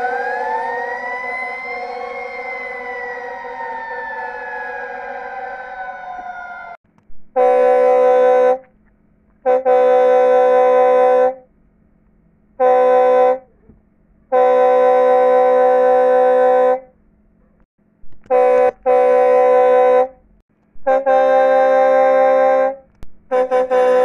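Fire truck siren wailing up and then winding down, cutting off about seven seconds in. It is followed by about eight loud blasts of the fire truck's air horn, some short and some two to three seconds long.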